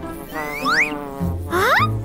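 Cartoon sound effect of a fly buzzing, with two quick rising swoops in pitch as it darts about.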